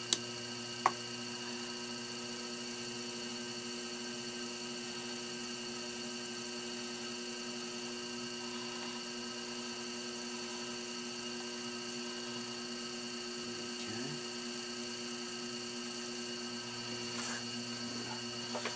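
Electric potter's wheel spinning with a steady motor hum, with two sharp clicks about a second apart near the start.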